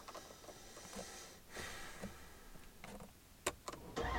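Faint clicks and ticks inside a car cabin, with a sharper click about three and a half seconds in as the push-button start is pressed. At the very end the starter of the Dodge Charger Daytona's 392 Hemi V8 begins to crank.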